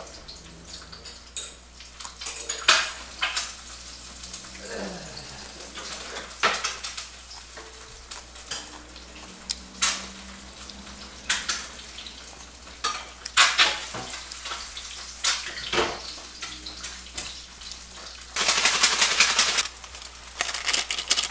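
Cooking clatter from a saucepan and utensils on a gas stove as Chapagetti instant noodles are made: scattered sharp clinks and knocks, with a louder noisy burst lasting about a second and a half near the end.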